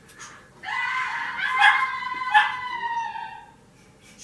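A dog whining and yelping in a high, wavering pitch, a string of cries with two sharp yelps in the middle, stopping a little before the end.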